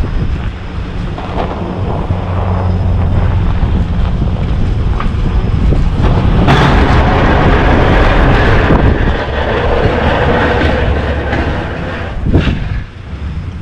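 Snowplow vehicle's engine running under load, with wind buffeting the microphone and a louder rushing surge for a few seconds midway.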